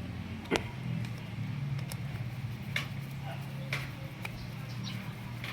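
Scattered light clicks and taps of motorcycle starter-motor parts being handled and fitted, over a steady low hum.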